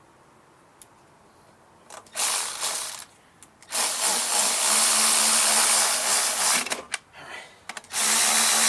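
A handheld power tool's motor runs in three bursts: a short one about two seconds in, a longer one of about three seconds, and another starting near the end.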